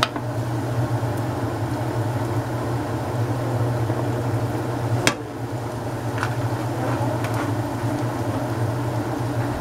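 A steady low mechanical hum, with a sharp tap about five seconds in and a lighter one about a second later.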